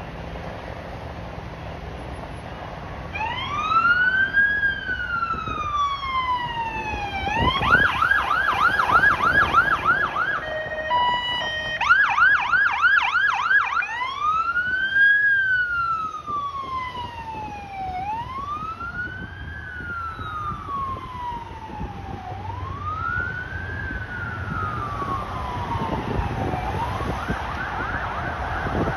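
Ambulance electronic siren over traffic noise. It starts a few seconds in with a slow wail rising and falling, then switches to a fast yelp of about four sweeps a second, broken by a brief horn-like blast. It goes back to the yelp, then to slow wail cycles.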